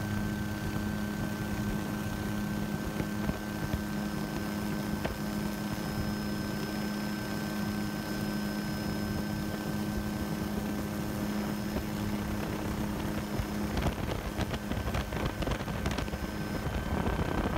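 Helicopter engine and rotor noise recorded on board: a steady droning hum with a constant high whine and wind noise. About fourteen seconds in the steady hum drops away, leaving a rougher, windier rush.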